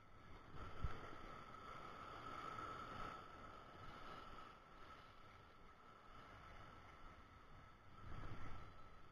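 Faint, steady wash of sea waves against a rocky shore, with a single knock about a second in.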